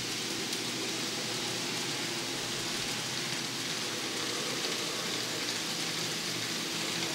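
N scale model trains running on the layout: a steady rolling hiss of small wheels on track with a faint low motor hum.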